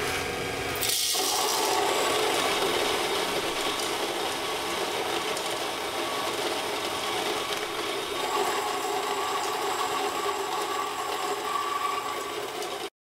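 Electric coffee grinder running: its empty motor hum turns about a second in into a loud, rasping grinding of coffee beans, which holds steady at about 77-80 dB until it cuts off abruptly near the end.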